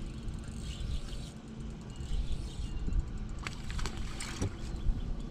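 A fishing reel whirring in short bursts as a lure is cast and retrieved from a bass boat's bow, with a few sharp clicks near the middle, over a steady low rumble.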